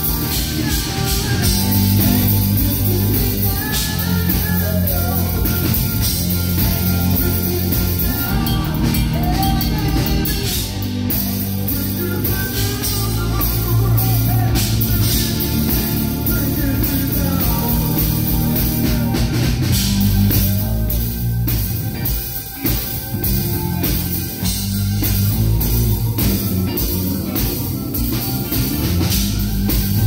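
Live band playing a song: male lead vocal over electric guitars, keyboards and drums. The singing stops about two thirds of the way through, and the band plays on without vocals.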